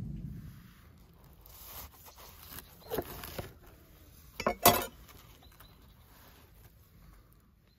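Hands handling a halved bacon cheeseburger on a wooden cutting board: soft rustling and crackling of bun and bacon, louder around three seconds, and one sharp crack about four and a half seconds in.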